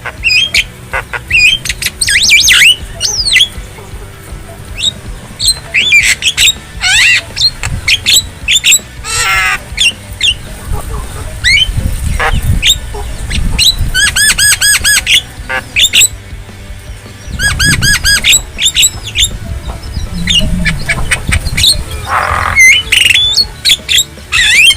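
Javan myna (jalak kebo) calling: a continuous, varied run of harsh squawks, chattering and whistled notes, some given as quick repeated series.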